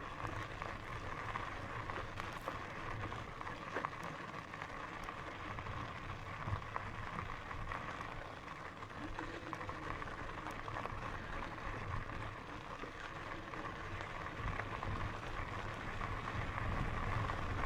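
Bicycle tyres rolling over a gravel and dirt trail: a steady crunching hiss with scattered small clicks of stones, and a faint steady whine underneath.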